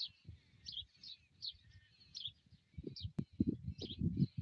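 A bird repeating a short, high chirp about twice a second. Wind buffets the microphone in gusts from past halfway.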